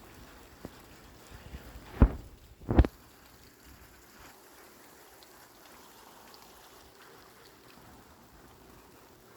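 Light rain hissing faintly and steadily, broken by two sharp, loud thumps about two and three seconds in.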